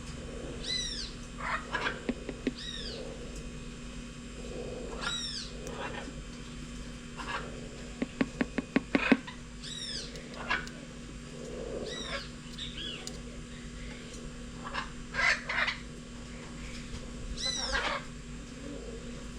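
A bird calling repeatedly: short arched, whistled calls with several overtones, one every few seconds. A quick run of about eight sharp clicks comes in the middle.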